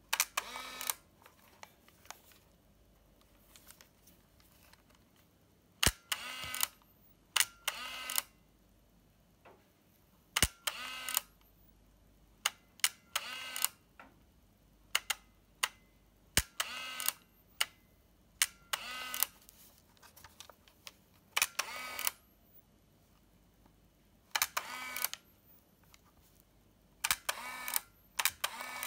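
Olympus Trip AF 50 compact 35mm film camera fired again and again: each press of the shutter button gives a click followed by a short whir of its motorized film advance. A quiet spell of a few seconds falls near the start.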